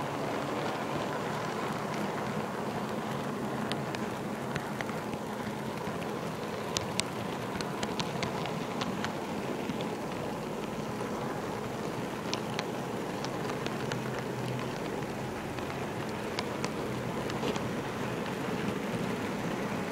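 HO-scale model train car rolling along the track with a steady hiss and rumble, with scattered sharp clicks as the wheels cross rail joints and turnouts, in clusters about a third of the way in, in the middle and near the end.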